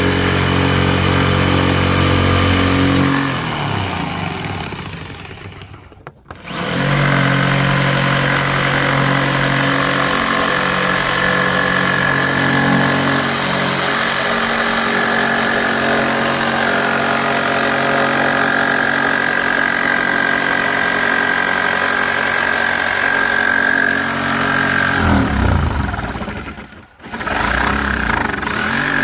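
Corded jigsaw running and cutting through a fibreglass boat deck. Its motor winds down to a stop twice, about six seconds in and again near the end, each time starting straight back up.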